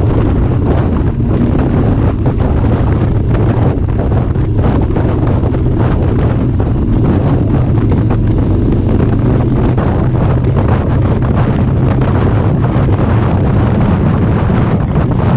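Loud wind noise buffeting the microphone of a camera on a moving Harley-Davidson motorcycle, over the steady low sound of the motorcycle's V-twin engine running at cruising speed.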